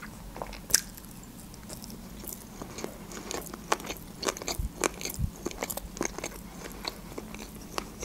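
Mouthful of sushi roll chewed close to a table microphone: wet chewing with irregular small clicks and smacks.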